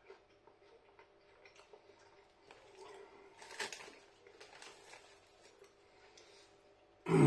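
Quiet chewing of crunchy corn puffs: faint scattered crunches and mouth clicks. Near the end, a loud throat clear.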